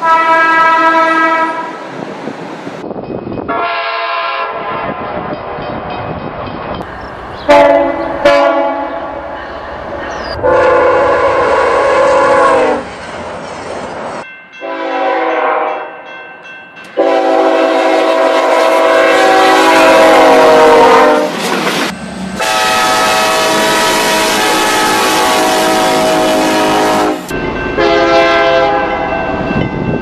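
A run of different train air horns, one after another: each sounds a chord of several notes, and each clip cuts off abruptly into the next. Some blasts are short and several last a few seconds.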